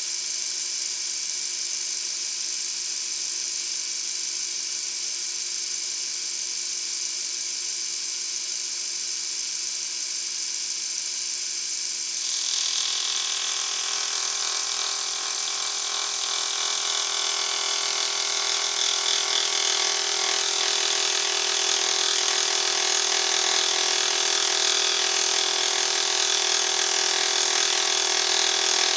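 Milling machine spindle running with a steady whine. About twelve seconds in, a dovetail cutter starts cutting cast iron, adding a louder, rough scraping sound that builds over the next several seconds.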